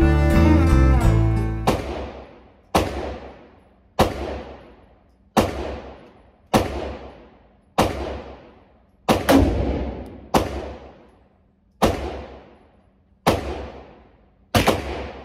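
Music ends about two seconds in, then a regular run of about a dozen sharp bangs, roughly one every 1.2 seconds, each ringing off for about a second.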